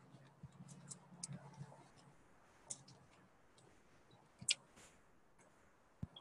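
Near-quiet outdoor stillness with scattered faint clicks and ticks, the sharpest about four and a half seconds in, and a faint low hum during the first two seconds.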